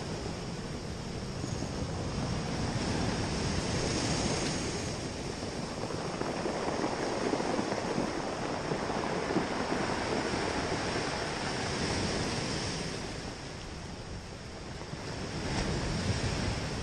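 Ocean surf breaking and washing over a cobble beach, the roar swelling and easing every few seconds as each wave comes in, with wind buffeting the microphone.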